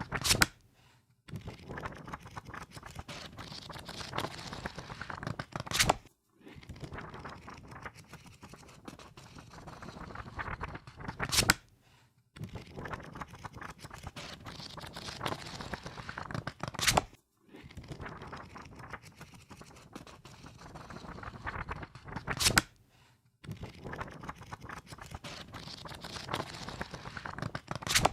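Book pages riffled rapidly, a fast papery flutter of many quick ticks that swells and ends in a sharp snap. The riffle repeats about every five and a half seconds, with a short pause between runs.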